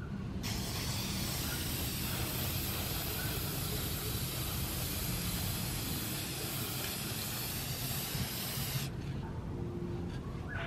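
Aerosol spray can of varnish spraying in one long, steady hiss that starts about half a second in and cuts off near the end.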